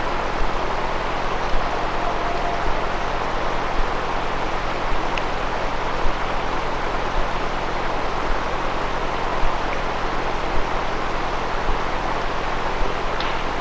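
Steady hiss and low hum of a night-time field recording turned up heavily, with a faint knock about once a second.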